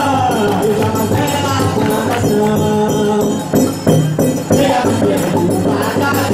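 Festa junina quadrilha music in forró style: a sustained melody over an even percussion beat, with a short dip in loudness about halfway through.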